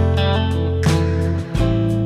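Background music led by strummed guitar, with sustained chords changing about every second and a half.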